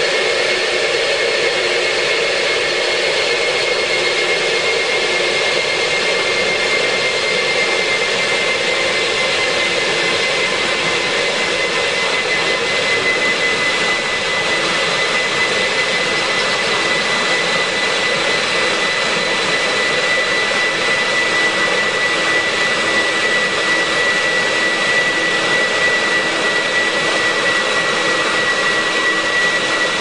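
Industrial wet vacuum cleaner running steadily while sucking water off a wet floor, its motor giving a loud, even rushing noise with a high whine that sinks slightly in pitch.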